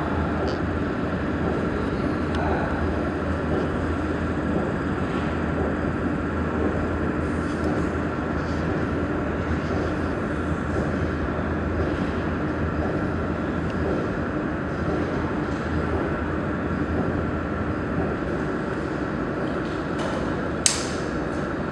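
Steady machinery hum with a faint high tone. Near the end comes a single sharp click: a wall-mounted circuit breaker (air switch) being switched on to power up a laser welding machine.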